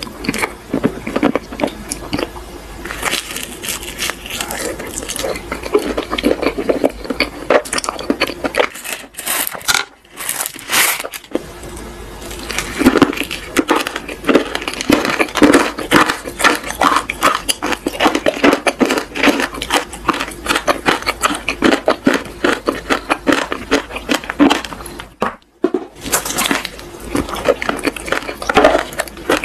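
Close-miked chewing and wet mouth sounds from eating a soft, cream-filled crepe: a fast, irregular run of small sticky clicks and smacks, with two brief pauses.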